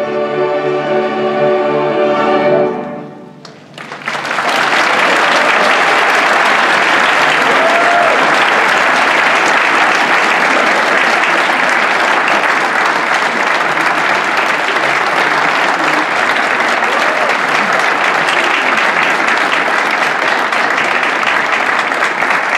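Youth string orchestra holding its final chord, which fades out about three seconds in; after a short pause the audience breaks into loud, steady applause.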